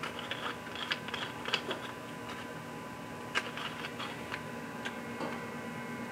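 Scattered light clicks and taps of small metal parts and tools being handled, a quick run of them at first and a few more later, over a faint steady hum.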